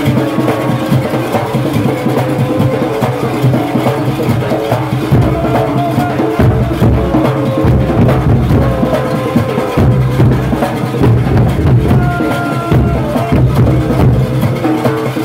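Junkanoo street band playing: large goatskin drums beat a steady, driving rhythm under brass horns sounding a repeating melody.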